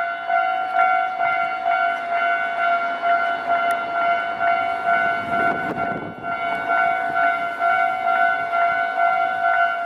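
Japanese level-crossing warning bell ringing: a steady electronic two-tone clang repeated about two and a half times a second, signalling that a train is approaching. A low rumble swells under it around the middle.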